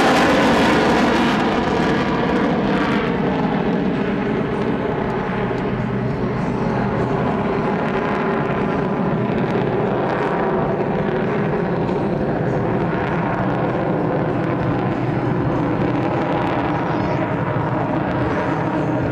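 Jet noise from US Navy Blue Angels F/A-18 Hornets flying away. It is loudest at the start, with the pitch dropping, then eases after a couple of seconds into steady, distant jet engine noise.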